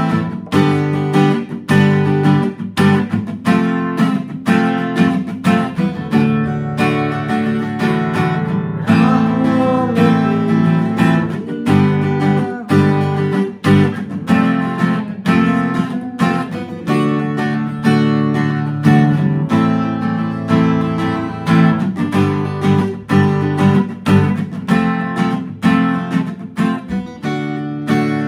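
Fender CD-60 V3 dreadnought steel-string acoustic guitar being strummed, chord after chord in a steady rhythm.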